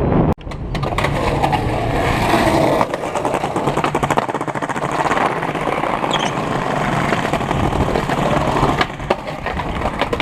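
Skateboard wheels rolling over rough pavement: a continuous dense rattle of small clicks and grinding.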